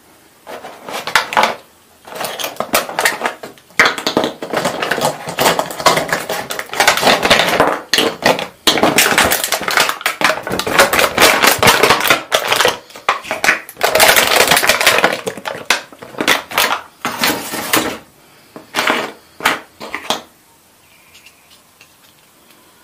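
Thin vacuum-formed plastic packaging tray crackling and popping as hands press toy plastic furniture out of it, in dense bursts of sound, with a few separate sharp clicks near the end.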